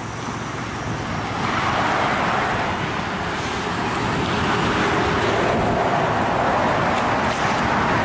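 Steady traffic noise from cars passing on a busy road, growing louder about a second and a half in.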